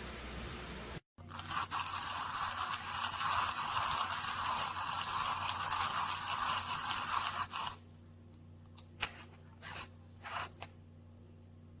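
Timemore Chestnut C3 ESP Pro hand grinder crunching coffee beans between its stainless steel conical burrs. The grinding starts about a second in, runs steadily for about six and a half seconds and stops, followed by a few short scrapes or clicks.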